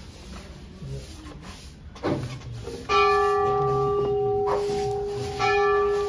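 Hindu temple bell struck about halfway through, ringing on with a steady hum of several tones. It is struck again about two and a half seconds later. A short knock comes just before the first strike.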